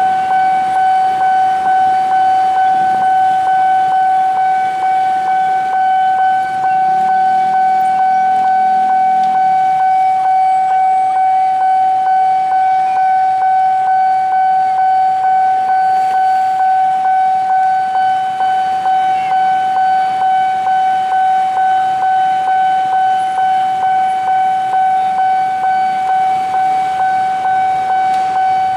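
Railway level-crossing warning alarm sounding a loud, steady electronic tone that pulses regularly, a little more than once a second, while the barrier is down for an approaching train.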